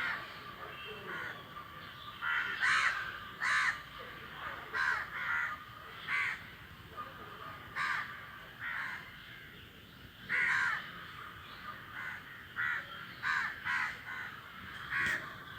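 A flock of crows cawing: short caws coming irregularly, sometimes two in quick succession, from several birds.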